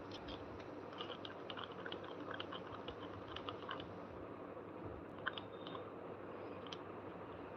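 A stir stick clicking and scraping against a plastic cup while clear resin is mixed: a quick run of small clicks for a few seconds, then a few scattered clicks.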